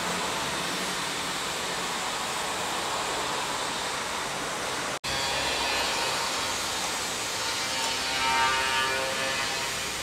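A power tool running steadily with a continuous hiss, broken by a brief cut about five seconds in.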